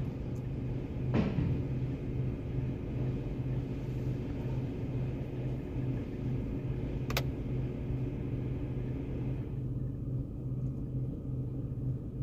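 Steady low mechanical hum, heard from inside the car in an automatic car wash bay, with two short clicks, about a second in and about seven seconds in. A fainter hiss drops away about nine and a half seconds in as the wash machinery comes to a stop.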